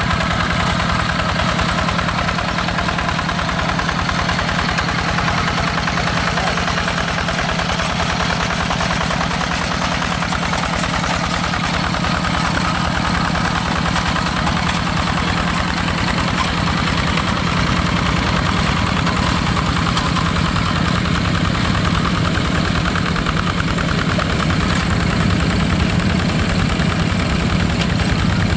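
Single-cylinder Yanmar diesel engine of a Quick G1000 two-wheel hand tractor running steadily as it drives the tractor through mud.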